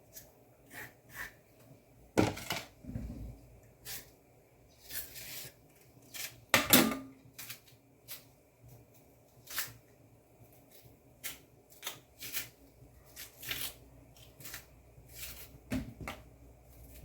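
Scattered short clicks and scrapes of a knife working on green banana skins as they are scored and peeled, with two louder knocks about two seconds and about seven seconds in.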